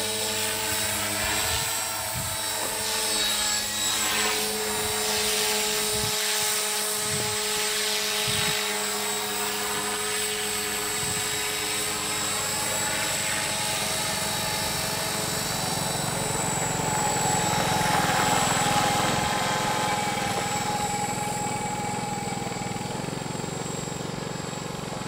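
Radio-controlled model helicopter flying overhead: a steady rotor and motor whine whose pitch shifts as it manoeuvres. It grows loudest a little past the middle, then fades as it moves away.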